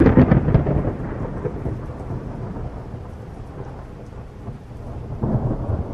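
A sudden loud low rumble that fades over about a second into a steady rumbling hiss, swelling again near the end.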